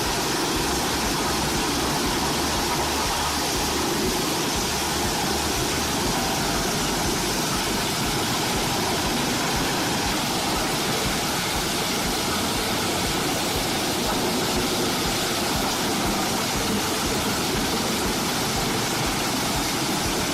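Large mobile wood chipper running: an unbroken engine drone under a steady rushing noise, even throughout, with no separate knocks or bangs.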